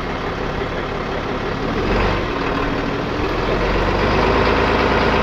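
Truck engine running steadily, getting louder about two seconds in as it comes under more load.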